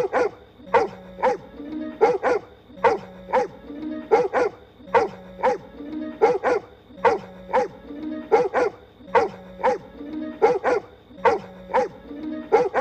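A cartoon pony character barking like a dog in short, yapping barks. The same short clip is looped, so the barks repeat identically about every two seconds.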